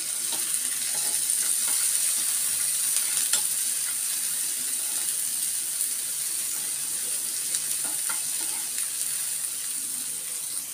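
Chopped onion, tomato, green chillies and curry leaves sizzling steadily in hot oil in a frying pan, with a spatula stirring and scraping against the pan now and then.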